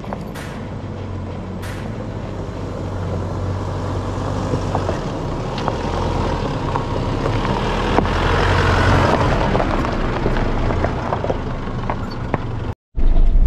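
A four-wheel drive climbing a rocky dirt track toward and past the camera: its engine hum grows steadily louder as it approaches and is loudest as it goes by, with tyres crunching and ticking over loose stones. The sound cuts out briefly near the end.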